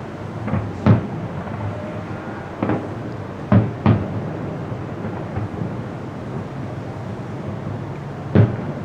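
Fireworks shells bursting in the air: about six sharp booms at uneven intervals over a steady background rumble, the loudest a little past three and a half seconds and near the end.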